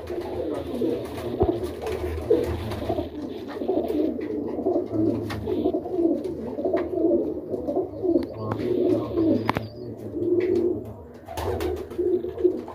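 Many domestic highflyer pigeons cooing in a small loft, their calls overlapping in a steady, continuous warble.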